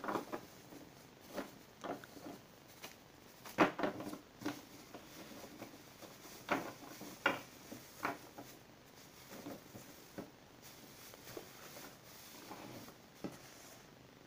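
Thin plastic bag rustling and crinkling in the hands as it is untied and opened, in irregular bursts, the loudest about three and a half seconds in.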